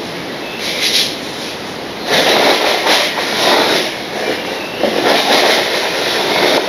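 Model train running on the layout's track, its wheels and motor rattling over the rails, growing louder about two seconds in.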